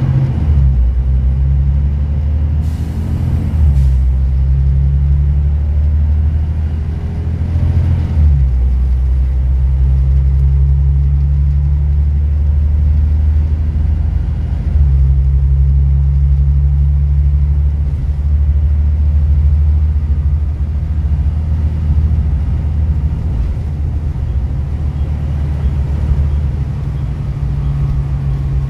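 Volvo B9TL double-decker bus's straight-six diesel engine and road noise heard from inside the lower deck: a low drone that breaks off and picks up again several times, as at gear changes, while the bus drives on. A short hiss about three seconds in.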